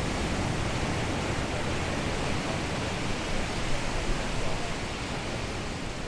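Steady wash of ocean surf on a beach, an even rushing noise with no single wave standing out.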